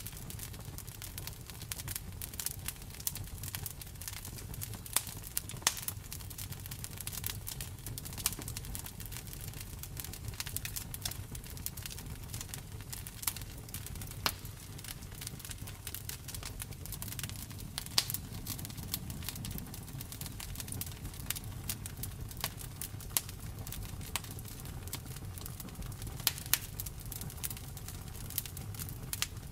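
Wood fire crackling: frequent irregular sharp pops and snaps, a few louder than the rest, over a low steady rumble of burning.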